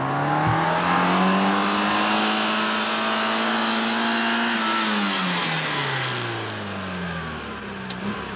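Fiat Uno hatchback's engine revving hard in the slalom: the revs climb over the first two seconds, hold high, then fall away about five seconds in and stay lower.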